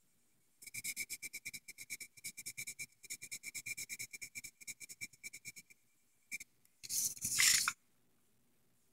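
Pencil shading on paper: the graphite tip scratches in quick back-and-forth strokes, several a second, for about five seconds. About seven seconds in comes a louder, brief rubbing sound.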